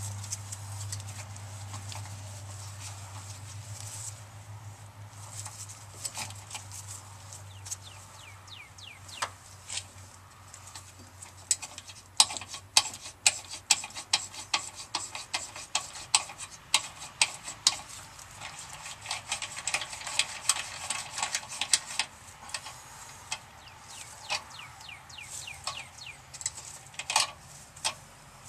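Hand tap in a T-handle tap wrench cutting 10 x 1.5 mm metric threads into the steel frame's motor-mount holes, lubricated with WD-40: a run of sharp metallic clicks and creaks as the wrench is turned, thickest in the middle.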